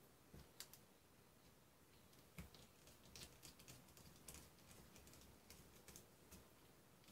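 Near silence with faint, irregular small clicks and taps from hands handling the drone's frame and fittings.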